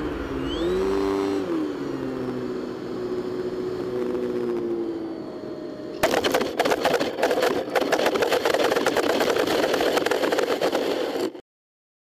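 Electric motor and propeller of an X-UAV Talon RC plane, heard from its onboard camera, whining with a pitch that rises and falls as the throttle changes. About six seconds in the whine stops and a louder, rough scraping noise full of bumps takes over as the foam airframe touches down and skids across snow. It cuts off suddenly near the end.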